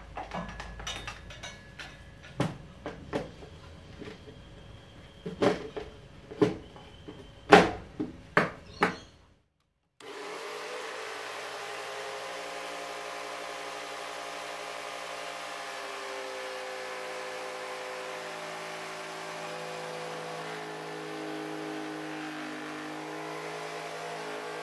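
Knocks and clatter of the jigsaw insert being fitted into the bench, then, after a brief silence, a small corded Ryobi jigsaw mounted upside down under the table running steadily as a scroll saw, cutting a curve in a small wooden board on a test cut. Its pitch shifts a little as the cut loads it.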